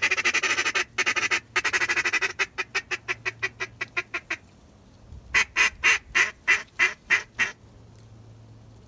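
Mallard duck call blown in runs of loud quacks: a long fast series that tapers off into slowing notes, then after a short pause about eight evenly spaced quacks.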